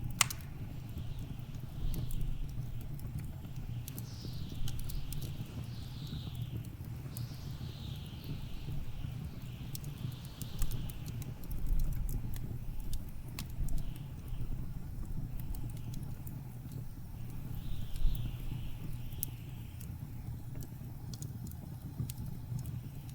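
Wood fire crackling with scattered sharp pops, over a steady low rumble of blizzard wind with hissing swells that rise and fade.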